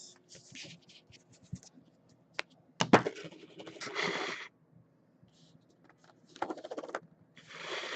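Handling noises on a tabletop during a heads-or-tails card pick: a few sharp clicks, the loudest about three seconds in, and several short bursts of scraping and rustling.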